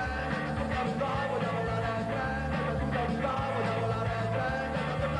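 Punk rock band playing an instrumental passage of the song, with no sung words.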